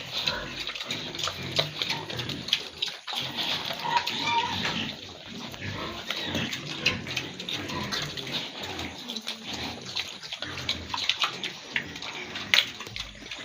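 Pigs grunting in their pens, mixed with many short knocks and clicks.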